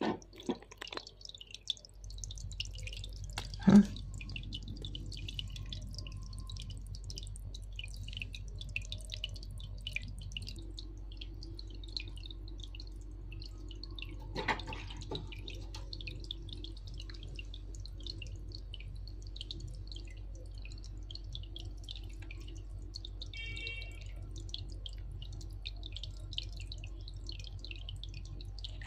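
Aquarium water dripping and trickling in a steady stream of small drops over a constant low hum, with a sharp knock about four seconds in.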